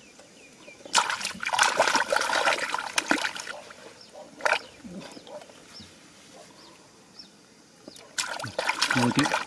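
Hands splashing and sloshing through shallow muddy water while groping for fish: a run of splashes about a second in, a single sharp splash near the middle, and another run of splashing near the end.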